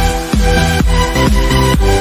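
Background electronic dance music with a heavy bass beat, about two beats a second.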